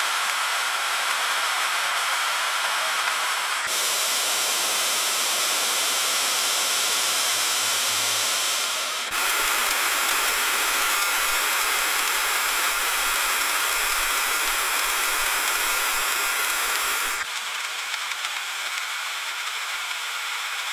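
Freezing rain falling on a street: a dense, steady hiss with no separate drops standing out, whose tone shifts abruptly three times.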